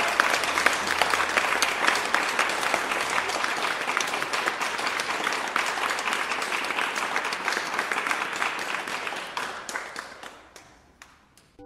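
Audience applauding, a dense crowd clapping that fades away near the end.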